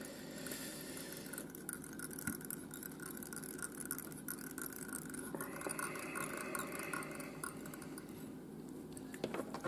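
Quiet room noise with faint handling sounds as tying thread is wrapped from a bobbin holder around a tube fly, binding in the tail fibres.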